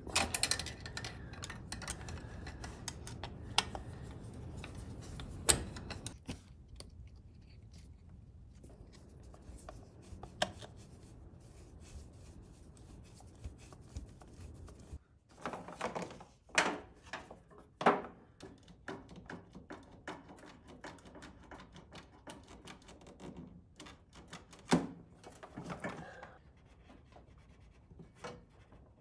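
Scattered clicks, taps and rubbing of hands working fuel line fittings and hose clamps on a tractor engine, with a few louder knocks now and then.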